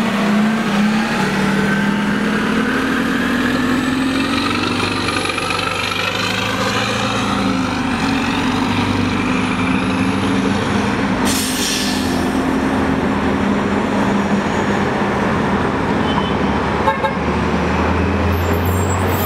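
Orion VII CNG transit bus with a Detroit Diesel Series 50G natural-gas engine pulling away from a stop and accelerating. The engine note climbs and steps through gear changes of the ZF automatic, with a faint high whine over it. A brief hiss comes about eleven seconds in.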